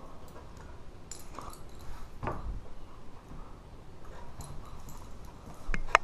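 Ceiling fan running on medium speed with faint, irregular ticks and knocks, a firmer knock about two seconds in and a couple of sharp clicks near the end.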